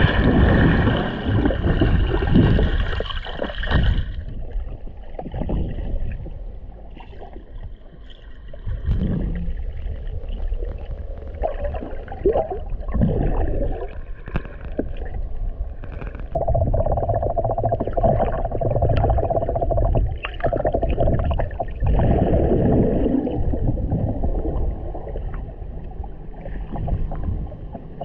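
Muffled underwater sound picked up by a GoPro camera as a snorkeler swims: low rumbling and water rushing past the housing, rising and falling, with a steady hum at the start and again about two-thirds of the way through.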